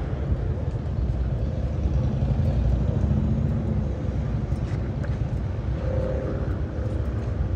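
Motorcycle engines in the surrounding rally traffic making a steady, loud low rumble, with a faint engine note rising out of it now and then.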